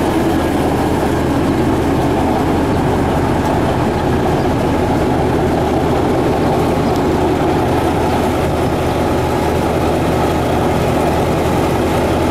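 Caterpillar D8K crawler dozer's six-cylinder diesel engine idling steadily.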